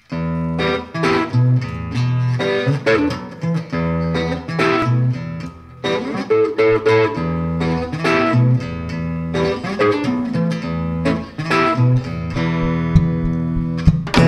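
Live instrumental music: acoustic guitar picking over sustained electric bass notes, with sharp plucked or struck accents.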